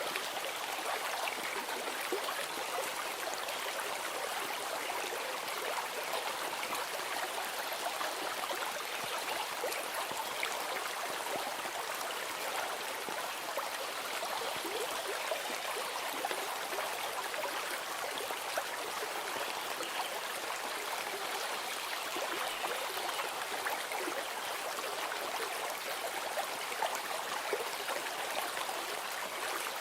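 Running stream water, a steady rushing and trickling with fine splashy crackle, unchanging throughout.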